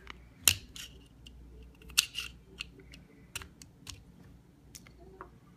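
Steel parts of a Zastava M70A pistol clicking and scraping as they are worked by hand and screwdriver during disassembly: a string of irregular sharp clicks, the loudest about half a second and two seconds in.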